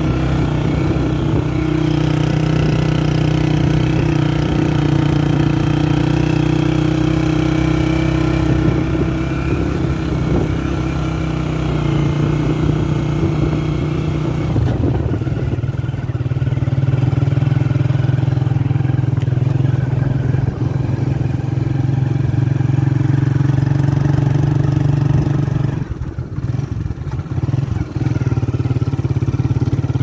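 A vehicle's engine running steadily while driving, heard from on board. It dips briefly near the end before picking up again.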